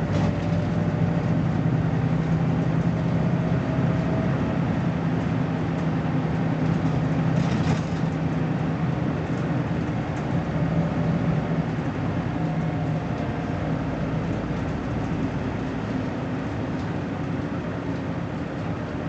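BMC Belde 220-SLF city bus's diesel engine running at a steady pace, with a brief hiss about seven and a half seconds in.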